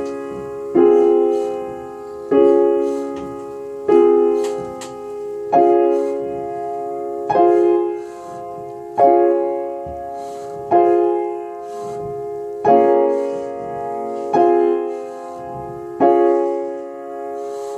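Piano playing a slow, even pattern: a louder note or chord struck about every one and a half seconds and left to fade, with quieter notes moving back and forth between the strikes.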